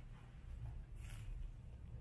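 Faint low background rumble, with one soft, brief rustle about a second in.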